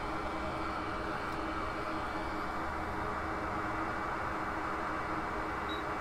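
A fan running steadily: an even hiss with a faint steady hum.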